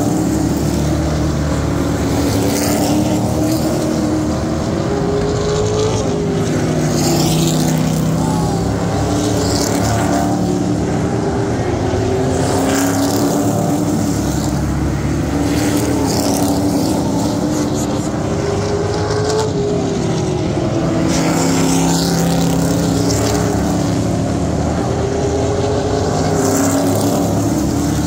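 Engines of a pack of hot rod stock cars racing on a short oval track. The engine notes rise and fall as the cars accelerate down the straights and lift through the turns.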